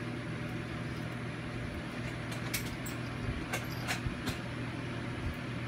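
Steady low mechanical hum from a running motor, with a handful of light clicks in the middle.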